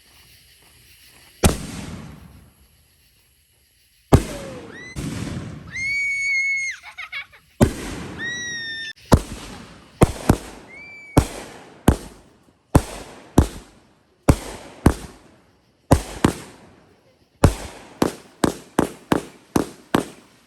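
Consumer fireworks going off: a string of sharp bangs, some with a short steady whistle, coming faster and closer together near the end.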